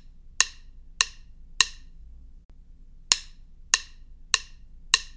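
Chopsticks clacking together in sharp, evenly spaced clicks, about one every 0.6 s, in two runs with a short pause between them.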